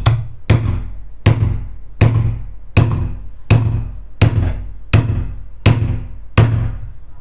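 Hammer tapping a wide drift to drive a new bearing bush into the base of a steel mixer-grinder jar. There are about ten light, even strikes, roughly one every three-quarters of a second, each ringing briefly.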